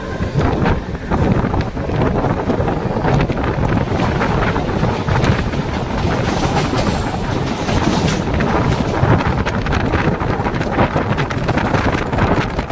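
Mumbai suburban electric train running at speed: steady rumble with wheels clicking over rail joints and points, and wind buffeting the microphone. Another electric local passes close on the next track midway, adding a rush of higher noise.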